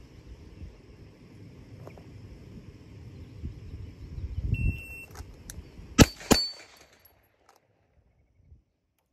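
Electronic shot-timer beep, then about a second and a half later two pistol shots about a third of a second apart, one on each of two targets in a transition drill.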